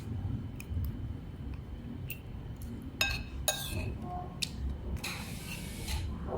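Dishes and utensils clinking at a street-food noodle stall, with a few sharp clinks about three seconds in and a second-long hiss about five seconds in, over a low background rumble.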